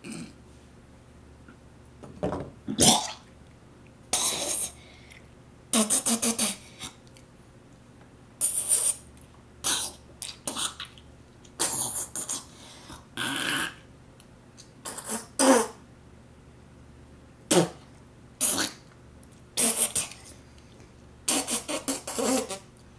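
A boy coughing, gagging and spluttering in short, irregular bursts, struggling to get down a mouthful of Vegemite.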